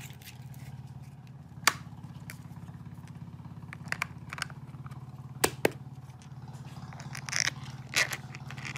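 Sharp clicks and knocks of plastic and rubber parts being handled on a child's plastic bicycle wheel as a rubber hub cap is fitted. The knocks are scattered, about half a dozen of them, over a steady low hum.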